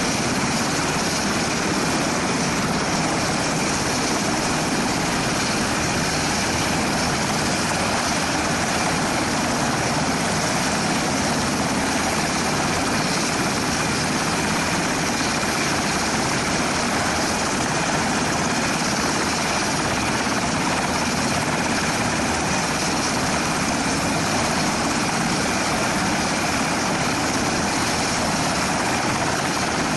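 UH-60 Black Hawk helicopter running on the ground with its rotor turning: a loud, steady, even rush of twin turbine engines and rotor.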